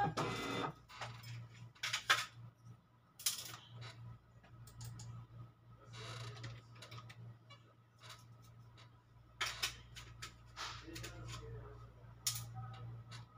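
Light handling noise: scattered small clicks and rustles, over a steady low hum.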